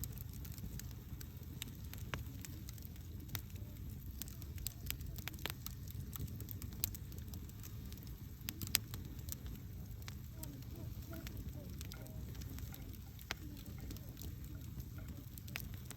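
Campfire burning, with irregular sharp crackles and pops over a steady low rumble; a couple of louder pops come around the middle.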